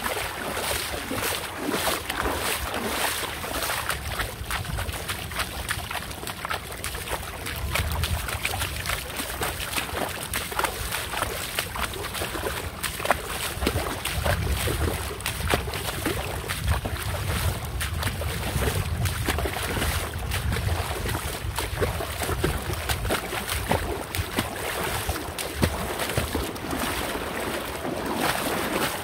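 Water splashing and sloshing with a steady rumble of wind on the microphone.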